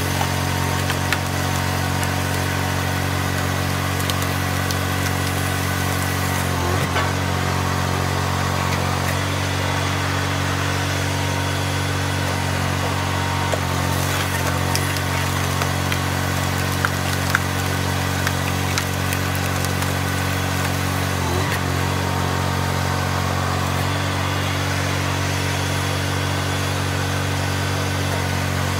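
Small engine running steadily to drive a hydraulic firewood splitter as it forces a log round through a multi-blade wedge grid. The engine note sags briefly twice, about seven seconds in and again about twenty-one seconds in, with a few faint sharp cracks.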